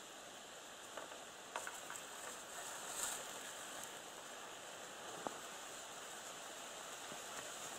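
Steady, faint outdoor hiss by the water, with a few small ticks and a brief brighter rustle about three seconds in.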